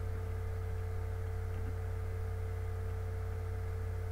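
Steady low electrical hum with a fainter, higher steady tone above it and no other sound.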